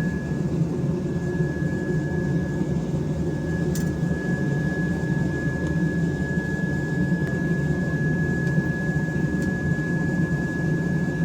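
A forge running steadily in the smithy: a constant low roar with a thin, high, unchanging whine over it, and no hammer blows.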